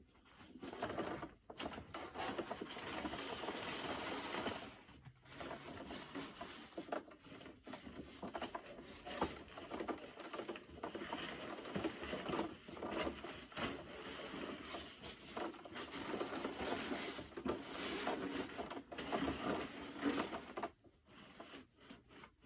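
Cloth rustling and handling noise as the animated Santa figure's costume is pulled and worked onto its frame, coming and going irregularly with brief pauses.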